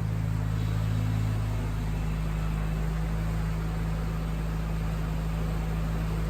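Mazda 13B twin-rotor rotary engine of an FC RX-7 idling steadily shortly after a cold start, easing slightly about a second and a half in.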